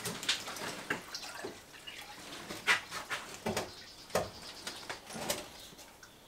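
Scattered light knocks and clicks at irregular intervals from hands working on a plastic IBC water tank and its fittings, a few with a short ringing tone.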